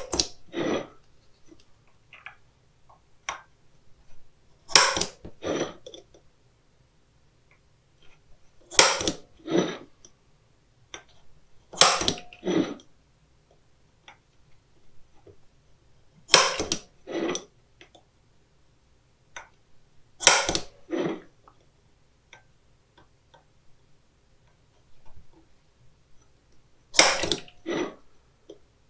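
Center punch being struck on the rivets of a mower deck sheave to mark them for drilling: sharp metallic strikes, mostly in pairs, every few seconds.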